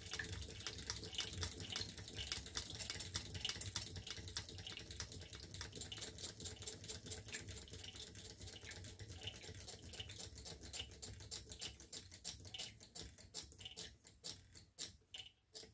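Tarot Stirling engine and the Empire water pump it belt-drives, running down on residual heat after the flame was taken away: a faint, fast clicking of the mechanism that gradually slows, the clicks spreading out until they stop near the end, with water trickling through the pump.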